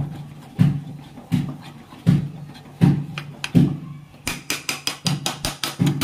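Thick rice-flour khichu dough being stirred in a pot, a steady thud about every three-quarters of a second. About four seconds in, faster, sharper clicks of the utensil against the pot join in.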